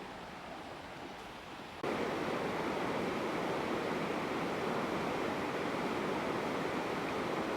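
Steady rushing noise with no distinct events, jumping abruptly louder about two seconds in and then holding level.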